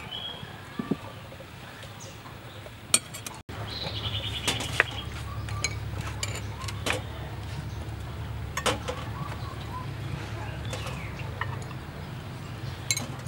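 Metal spoons clinking and tapping on small ceramic bowls, plates and eggshells as boiled duck eggs are cracked and scooped, in scattered sharp clicks. A low steady hum comes in about three seconds in.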